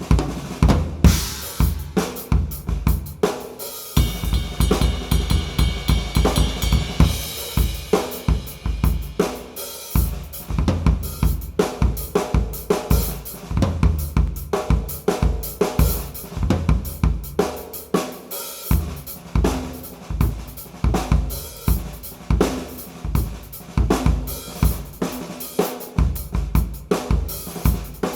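Sakae Trilogy drum kit with 3-ply maple/poplar/maple shells, a Ludwig LM552 bronze snare and Paiste cymbals, played in a steady groove of bass drum, snare, hi-hats and cymbals. There is a brief break about four seconds in, followed by a few seconds of heavy cymbal wash.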